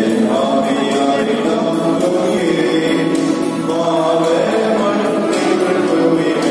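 Church choir singing a hymn, with sustained, layered voices, inside a large vaulted church.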